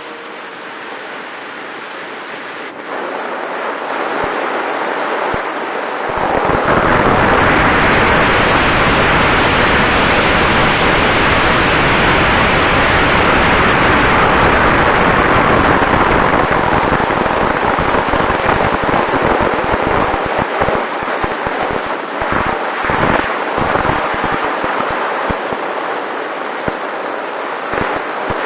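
Rushing wind and airflow noise on an onboard camera's microphone in flight, with a faint steady motor tone. It grows louder about six seconds in, then turns gusty and choppy in the second half.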